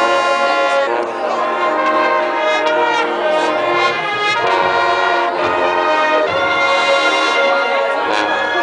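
Marching band brass section playing sustained full chords, moving from chord to chord every second or so over low bass notes.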